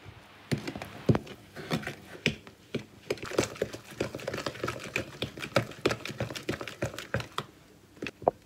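A spoon stirring thick yogurt-and-flour cake batter in a plastic mixing jug: a quick, irregular run of clicks and knocks against the jug's sides that thins out near the end.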